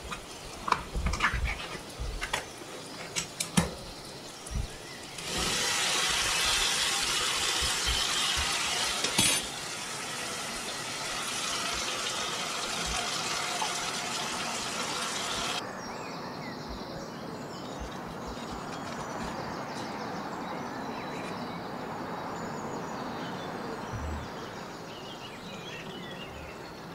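Ring-pull tin being levered open with a metal spoon: a few sharp clicks and scrapes of metal. Then a loud, steady rushing hiss for about ten seconds that cuts off suddenly, followed by a quieter steady sizzle from the pan of onions and tomatoes on the hob.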